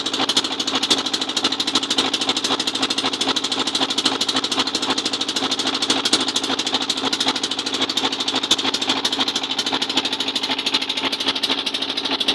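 Fishing boat's engine running steadily underway, a rapid, even chugging.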